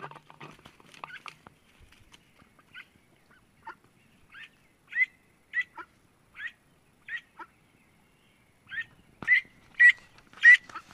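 A duck calling: a string of short, high-pitched calls starting about three seconds in, coming every half second to a second and growing louder near the end.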